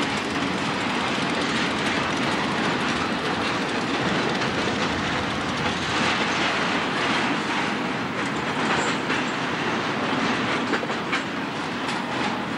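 Intermodal freight train of highway trailers on flatcars rolling past close by: steady noise of steel wheels on rail, with wheels clicking over rail joints, the clicks sharper and more frequent near the end.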